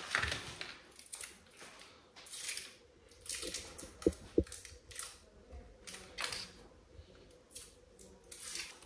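Cheese being unwrapped and broken by hand into a pot of boiled potatoes: a series of short rustles and crinkles, with two sharp clicks close together about four seconds in.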